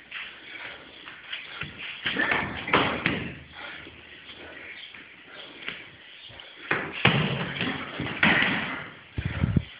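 Muay Thai sparring: strikes landing as sharp slaps and thuds, in flurries about two seconds in and again about seven seconds in, with a heavy thud near the end.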